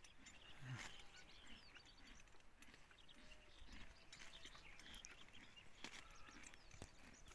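Near silence: faint open-air ambience with a few faint, short high chirps scattered through it.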